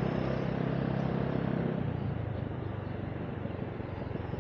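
Motorbike engine running at low speed while riding through slow traffic, with road and wind noise on the microphone; the engine hum fades about halfway through, leaving mostly a steady rush.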